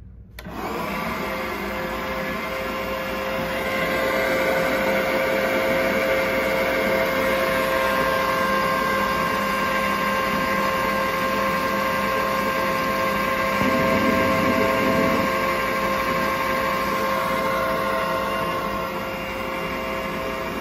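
Epple BS 125 GS metal band saw running free with no workpiece, its speed dial at the top setting: a steady motor and blade whine that starts abruptly about half a second in and grows a little louder over the next few seconds.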